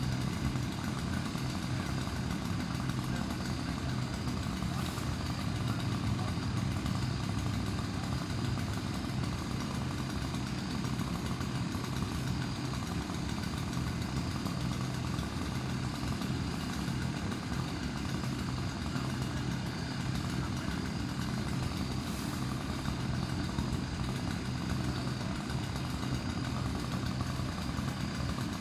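An engine running steadily at an even speed, with a constant low hum and no revving.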